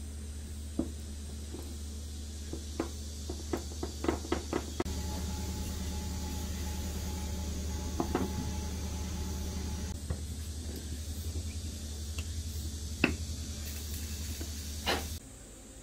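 Scattered light clicks and taps of knife handle parts being handled and fitted: wooden handle scales pressed onto the tang and a C-clamp put on and tightened, with a quick run of clicks around four seconds in. A steady low hum runs underneath and cuts off suddenly near the end.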